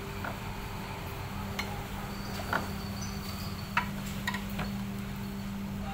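A metal hand tool clinking on the bolts of a Yamaha Aerox 155's CVT crankcase cover as they are undone: about five sharp, irregular clicks, over a steady low hum.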